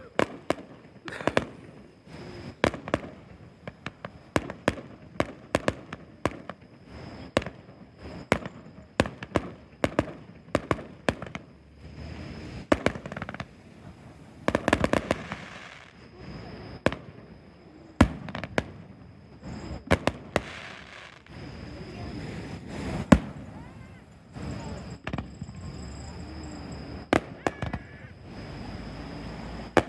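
Fireworks display: a long run of sharp shell bursts, about one or two a second, with a thicker spell of crackling about halfway through.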